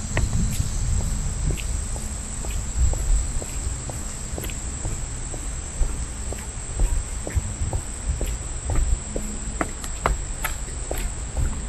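Insects calling in a steady high-pitched drone, with soft footsteps about twice a second and a low rumble underneath.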